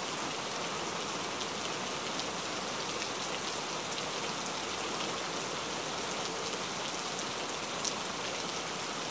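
Condensed milk pouring in a thin stream into milk in a blender jug: a steady, even splashing hiss that does not change.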